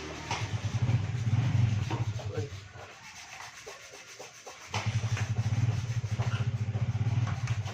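Yamaha NMAX scooter engine running with a fast, even pulse. It drops away about three seconds in and runs again about a second and a half later.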